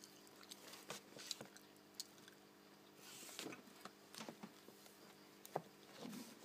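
Near silence: room tone with a faint steady hum, broken by a few soft clicks and a brief rustle. The sharpest click comes about five and a half seconds in.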